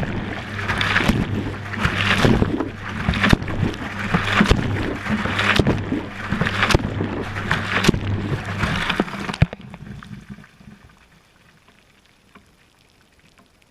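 Water and wet laundry sloshing inside a tumbling washing-machine drum, heard from within a waterproof camera housing. Surges come about once a second with each turn of the drum, over a steady motor hum. About nine and a half seconds in, the tumbling and hum stop and it goes almost quiet.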